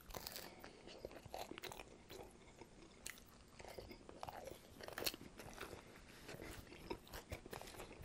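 A person chewing a crunchy mouthful close to the microphone: soft, irregular crunches and mouth sounds, with a couple of sharper crunches about three and five seconds in.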